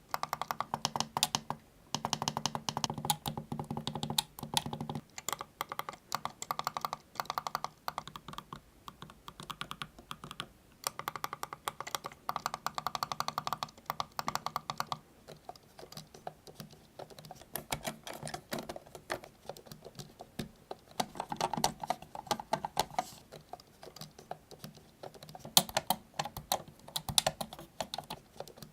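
Speedlink AXON wired mouse being worked, its scroll wheel rolled and its buttons pressed, in fast runs of small plastic clicks broken by short pauses.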